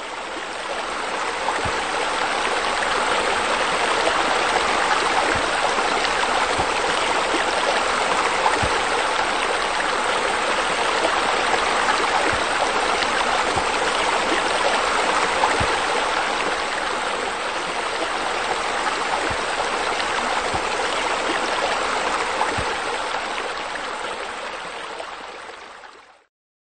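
Steady rush of running, splashing water from a pool's deck jets pouring into the pool. It swells over the first couple of seconds, then fades out and stops just before the end.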